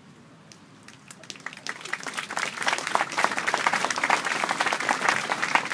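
Audience applauding. A few scattered claps start about a second in and swell into full applause within the next second or two.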